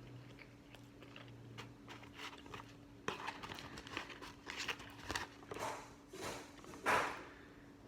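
Close chewing and crunching of fast food, a run of irregular crackly bites starting about three seconds in, the loudest near the end, over a faint steady hum.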